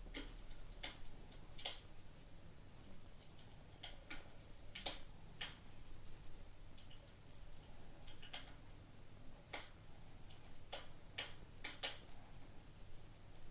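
Wood fire crackling: irregular sharp pops and snaps, sometimes two or three in quick succession, with gaps of a second or more between.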